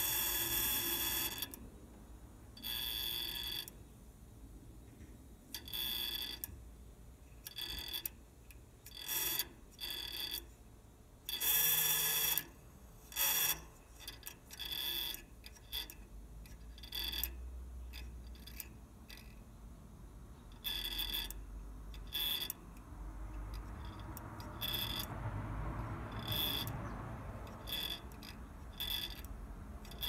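Check valve in a Trane heat pump's TXV bypass liquid line chattering with a buzz after the compressor shuts off. The buzz runs steadily for the first second or so, then comes and goes in short bursts. The owner suspects refrigerant flowing back past the valve, making its ball vibrate.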